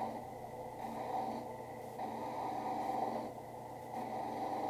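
Benchtop drill press running a sanding drum, with a leather holster's edge pressed against the drum by hand: a rasping sanding noise over a steady motor hum. The rasp swells and fades about three times as the edge is worked in passes.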